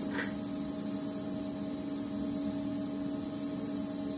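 Steady electrical hum with a constant hiss behind it.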